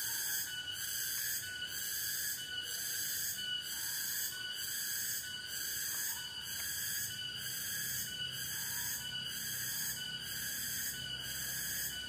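Tropical forest insect chorus: a high-pitched buzz that pulses evenly about one and a half times a second, with a thinner whistling tone pulsing in the same rhythm.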